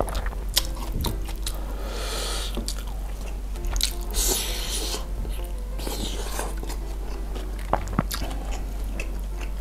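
Close-miked mukbang eating sounds: a man biting and chewing grilled chicken pulled from the bone by hand, with many short wet mouth clicks and a few longer hissing sounds about two and four seconds in. Faint background music runs underneath.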